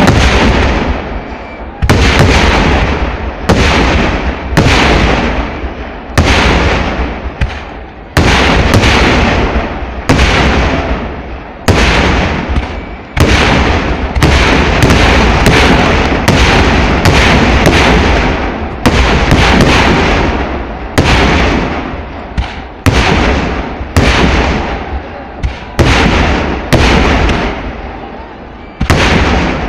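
Aerial firework shells of a Kerala temple-festival display being launched and bursting one after another, a steady string of loud blasts about once a second, each trailing off in a long rolling echo.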